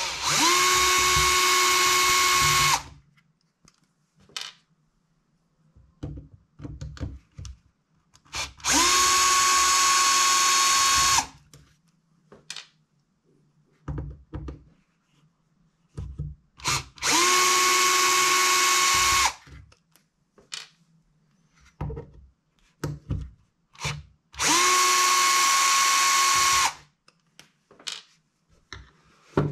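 Compact cordless electric screwdriver backing out screws from an RC buggy's chassis parts. It runs in four bursts of about two and a half seconds each, spinning up and holding a steady whine. Small clicks and taps of parts being handled come between the bursts.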